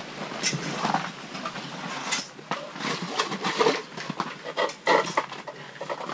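Irregular knocks, clicks and scrapes of a hand ice auger's metal parts being handled and fitted together.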